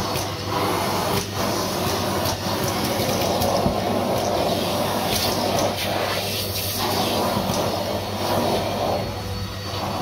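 Numatic Hetty cylinder vacuum cleaner running, its motor humming steadily under the rush of air sucked through the crevice tool on carpeted stairs, with scattered short clicks and knocks. The rushing changes briefly a little past halfway as the nozzle comes off the carpet.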